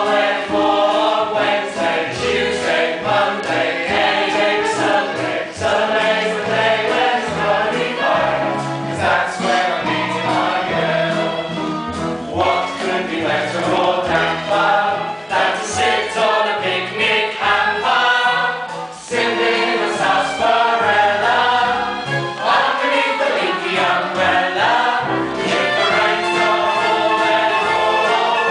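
A musical-theatre song: a chorus of voices singing together with orchestral accompaniment.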